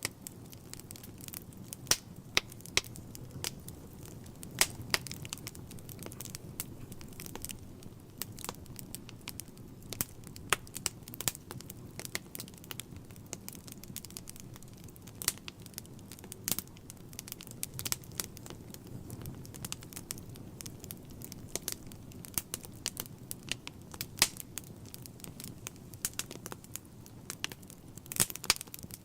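Wood fire burning in a fireplace: irregular sharp crackles and pops from the logs over a low steady rumble.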